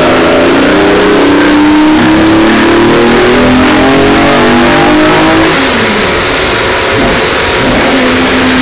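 BMW Z3 Coupe race car's Terry Dolphin race engine running hard on a rolling road, its revs climbing steadily under load. About five and a half seconds in the revs fall sharply, then build again from a lower pitch.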